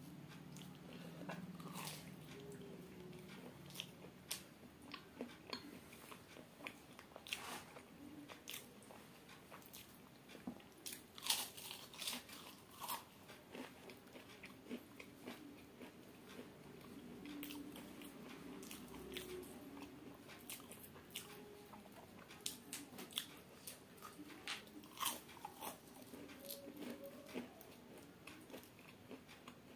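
Close-miked chewing and biting of a deep-fried samosa: many short crunches and mouth clicks at irregular intervals, with a louder cluster of crunches about eleven seconds in.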